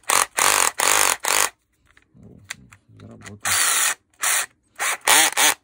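Makita DDF453 cordless drill-driver run in a series of short trigger bursts, its motor and gearbox spinning up and stopping several times: a test of a gearbox that the repairer finds broken.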